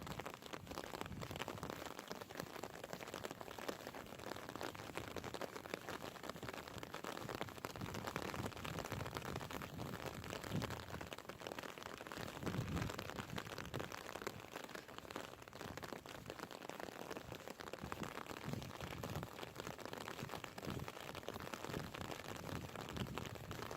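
Steady hiss of falling rain, with irregular low thuds every few seconds.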